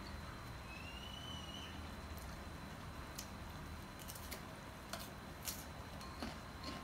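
Faint light clicks and taps of chopsticks and tableware, several in the second half, over a low steady hum, with one short high chirp-like tone about a second in.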